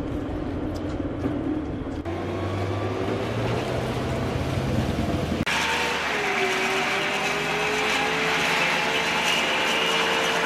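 Tracked AAV7 amphibious assault vehicles running, with a diesel engine rumble and a steady mechanical whine. The sound changes abruptly about two seconds in and again about five and a half seconds in. After the second change, a louder, higher whine holds steady as a vehicle pulls out of a garage bay.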